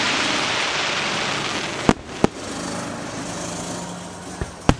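Fireworks show: a dense hiss for the first couple of seconds, then sharp bangs of aerial shells bursting, two about two seconds in and two more near the end.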